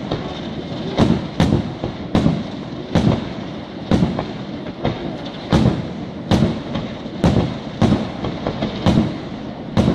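Fireworks display: a rapid barrage of aerial bursts, about a dozen sharp bangs at irregular intervals of roughly half a second to a second, over a continuous noisy crackle.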